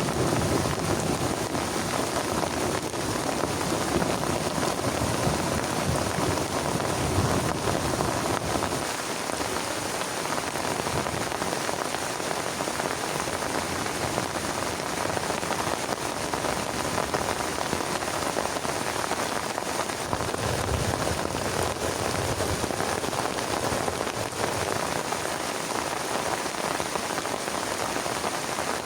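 Heavy rain falling steadily on a plastic tarp, with soft low rumbles coming and going underneath.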